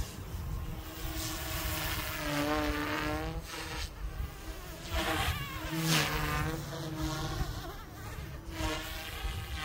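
Goosky S2 electric RC helicopter in flight, its rotors and motors giving a buzzing whine. The pitch rises and falls several times as it manoeuvres and passes. Wind rumbles on the microphone throughout.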